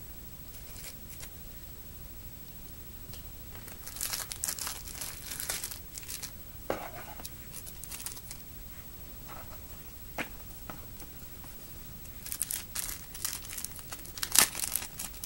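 Plastic packaging and paper booklets being handled and shifted about, crinkling in short clusters about four seconds in and again near the end, with a few light taps between.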